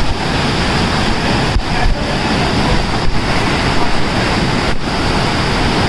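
Loud, steady rushing of a small waterfall cascade pouring over rocks right beside the microphone, with a few brief dips in level.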